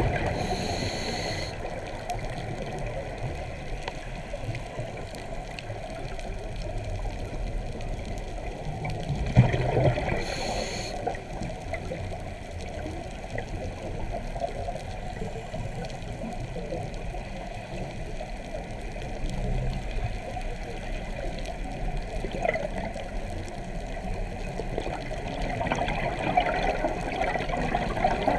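Scuba diver breathing through a regulator, heard underwater: two short hissing breaths about nine seconds apart, with steady bubbling water noise between them.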